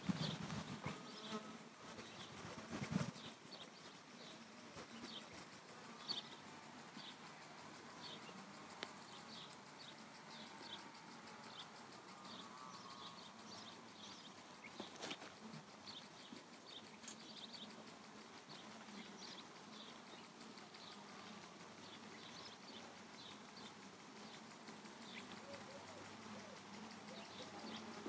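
Faint steady buzzing of honeybees around an opened hive, with short high chirps repeating over it and a sharp click about fifteen seconds in.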